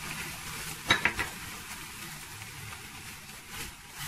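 Filled batter pancake frying in a lightly oiled nonstick pan with a steady sizzle. A quick cluster of sharp clicks comes about a second in.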